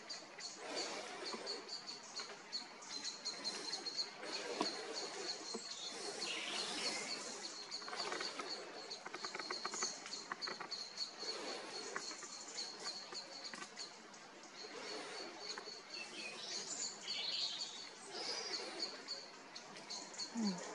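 Outdoor ambience: a steady, high-pitched, rapidly repeating chirp from a small animal over a hiss of background noise, with a few faint clicks.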